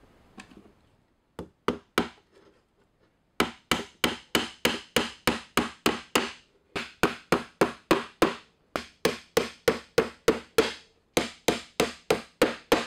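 Claw hammer driving nails into cedar fence-board wood with quick, light blows. A few single taps come about a second and a half in, then steady runs of about three strikes a second, with short pauses between runs.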